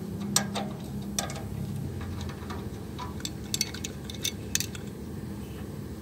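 Scattered light metallic clicks and clinks as a truck's disc horn is worked loose from its mounting bracket by hand, a cluster of them late on.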